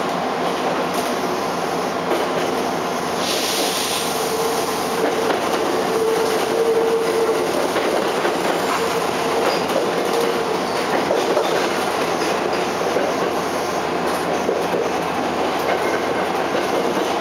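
Interior running sound of a Kyoto Municipal Subway 10 series car with a Mitsubishi IGBT-VVVF inverter, moving off and running on through the junction: steady wheel-on-rail rumble with clatter over rail joints. A short hiss comes about three seconds in, and a quiet steady motor tone sounds for several seconds after it.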